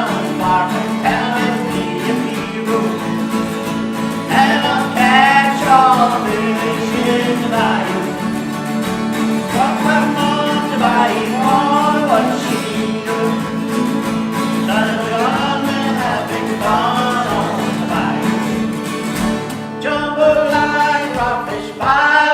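Acoustic folk music: strummed guitar with a bending melody line above it.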